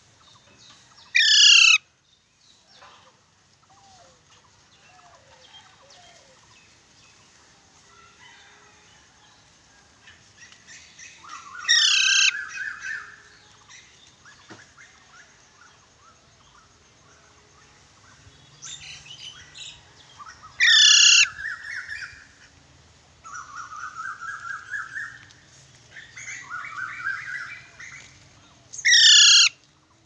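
Pet parrot calling: four short, loud screeches spread several seconds apart, with quieter chattering runs between them.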